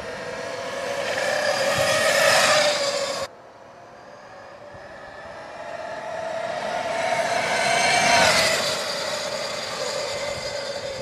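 Homemade 90-volt, 20 kW electric dirt bike's motor and belt-and-chain reduction drive whining as it rides past, swelling as it nears and bending down in pitch as it passes. The whine breaks off abruptly about three seconds in and builds again to a louder peak about eight seconds in.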